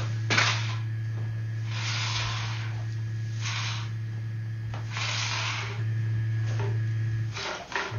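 A steady low electrical hum with about five short hissing bursts, each roughly half a second long.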